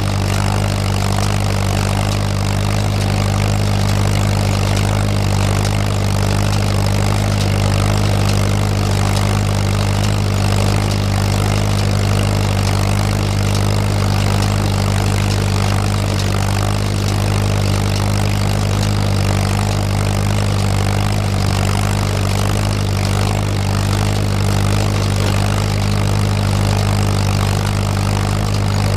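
Tractor engine running steadily at a constant speed, driving a Massey Ferguson No. 12 square baler through its PTO while baling hay in the field.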